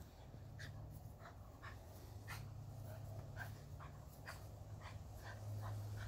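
Dogs at play, giving about a dozen short, high yips at irregular intervals over a steady low hum.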